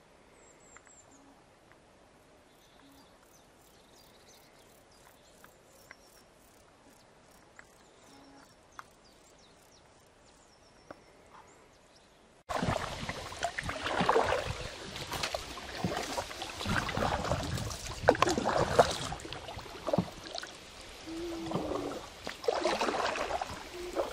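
Faint bird chirps over quiet natural ambience. About halfway through, this cuts abruptly to much louder, uneven splashing and knocking from a canoe being paddled on a river.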